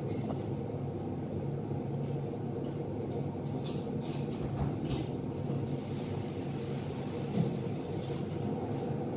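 A steady low mechanical hum, with a few brief light clatters and rustles: three around the middle and one, the loudest, a couple of seconds before the end.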